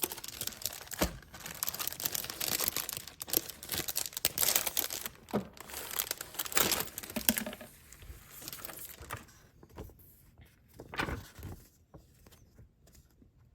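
Packaging crinkling and tearing as the board-game contents are unwrapped, dense for the first seven seconds or so, then thinning to a few scattered rustles and clicks.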